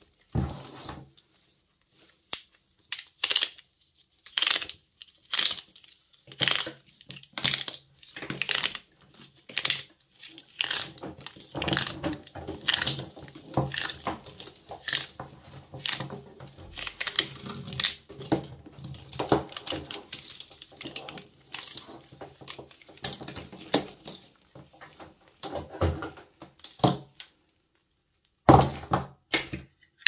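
Grey plastic spiral cable wrap being unwound and pulled off a bundle of computer cables by hand: irregular rustling, scraping and clicking of the plastic against the cords. There are a few louder knocks, near the start and twice near the end.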